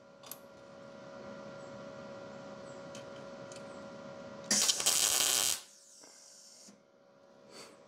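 MIG welder striking an arc for a single tack weld on a steel frame rail patch panel: a loud burst of arc sizzle lasting about a second, a little past the middle. Before it there is a steady low hum.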